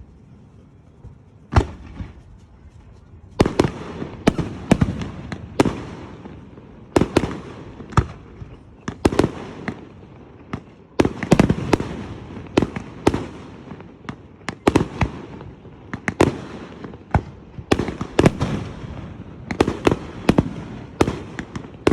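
Aerial fireworks bursting in quick, irregular succession: many sharp bangs, each trailing off in a rumbling echo, beginning about a second and a half in.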